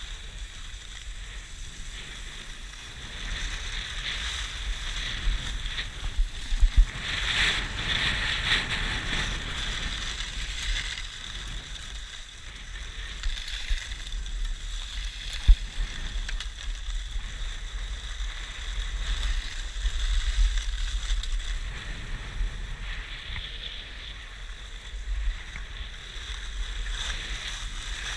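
Skis hissing and scraping over packed snow in a steady run, louder for a few seconds about a quarter of the way in, with wind rumbling on the GoPro's microphone.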